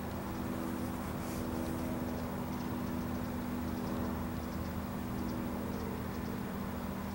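EMD diesel locomotive engine running with a steady, even drone as the train approaches slowly, with a short hiss about a second in.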